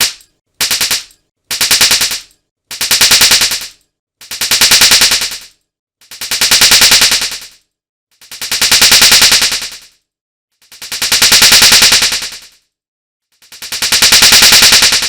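A hand-slap sound effect repeated extremely fast, so the slaps run together into a rattling stream. It comes in about seven bursts with silence between them; each burst swells and fades, and the bursts grow from about half a second to about two seconds long.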